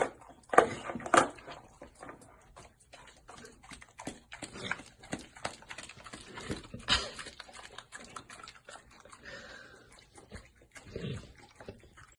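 A dog making short, irregular sounds among scattered clicks and knocks, loudest about a second in and again about seven seconds in.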